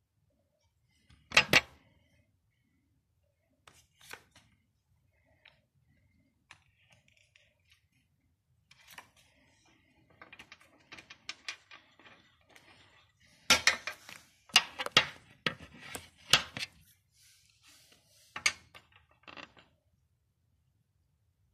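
A small stack of Topps paper football stickers handled and flipped through by hand: paper flicks and snaps as the stickers are slid and shuffled, with soft rustling between. One sharp snap comes just after a second in, and a run of louder snaps comes about two-thirds of the way through.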